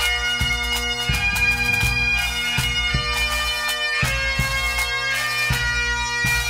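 Bagpipe music: a melody over steady held drones, with a drum keeping a steady beat.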